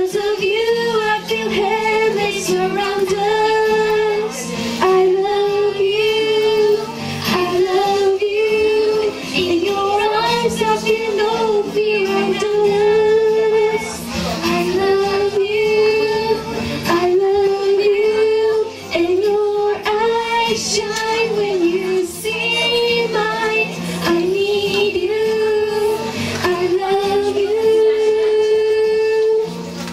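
A girl singing a song into a handheld microphone, amplified over a musical accompaniment.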